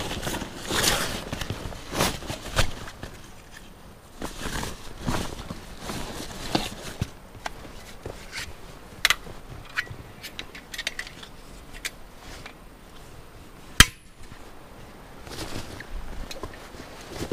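A nylon backpack being handled at close range: fabric rustling and straps and buckles clicking now and then, with one sharp click late on.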